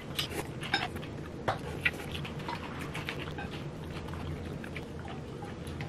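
Mouth sounds of people chewing dumplings: short, irregular wet smacks and clicks, busiest in the first couple of seconds and sparser after, over a low steady hum.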